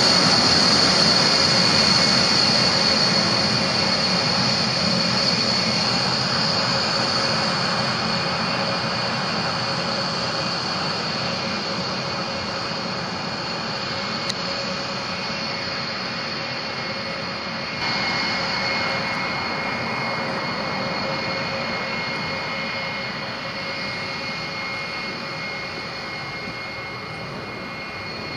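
B-1B Lancer's four General Electric F101 turbofans running at taxi power: a steady high whine over a rushing hiss. It fades gradually, with a small jump in level about eighteen seconds in.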